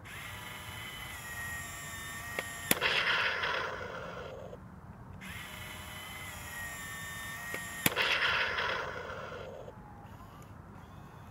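Toy RC tank firing twice: each time a small motor whines for about two and a half seconds, a sharp snap goes off, and a loud cannon-blast sound effect follows for about two seconds.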